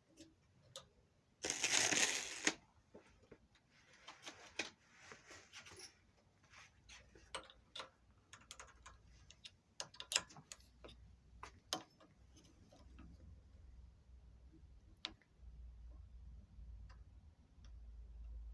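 Small parts being handled during a hand-lever rebuild: scattered light clicks and taps. About two seconds in comes one loud noisy burst lasting about a second, and a low hum comes and goes in the second half.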